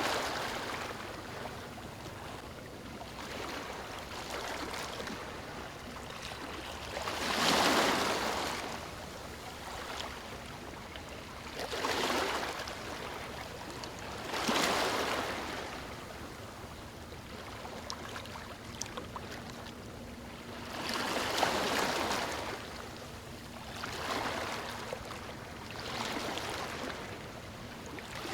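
Small waves breaking and washing onto a beach, the rush swelling and fading every few seconds. The loudest wash comes about a quarter of the way in.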